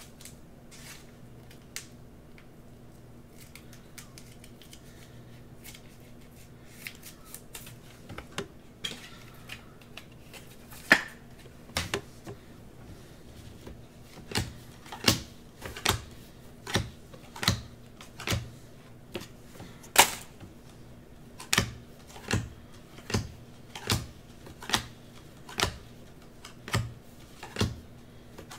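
Football trading cards being flicked one at a time from a hand-held stack, each card giving a sharp click or snap. A few scattered clicks in the first half, then a regular click about every 0.8 seconds as the cards are shown in turn, over a faint steady hum.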